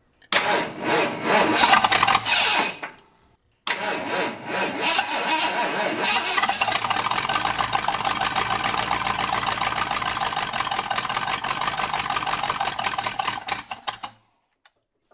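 Ford F-150's 351 V8 being cranked to start, its choke and throttle held open by hand at the carburetor: a short try of about three seconds, then after a brief pause about ten seconds of steady, evenly pulsing cranking that stops near the end. The engine is from a truck that sat flooded.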